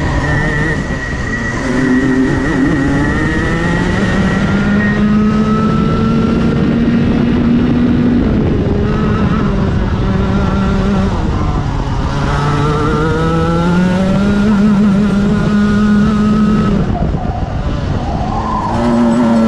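Racing kart's engine heard from on board, its pitch climbing over the first couple of seconds, holding high, then falling as it slows for a corner around the middle. It climbs again, dips briefly near the end, and picks up once more.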